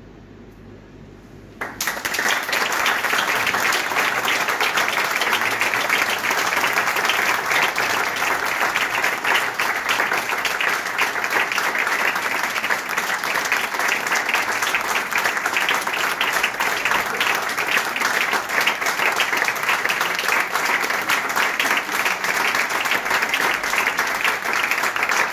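Audience applauding, starting suddenly about two seconds in and holding steady.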